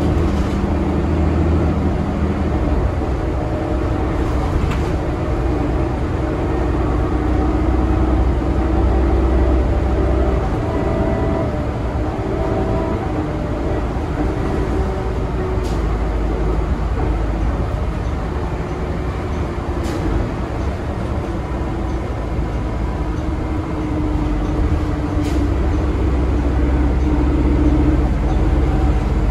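A 2022 Nova Bus LFS city bus under way, heard from inside the cabin: its Cummins L9 inline-six diesel and Allison six-speed automatic drivetrain make a steady low drone whose pitch shifts up and down, with a few sharp clicks.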